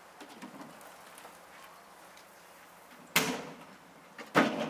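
Two loud bangs a little over a second apart, each sudden and dying away over about half a second.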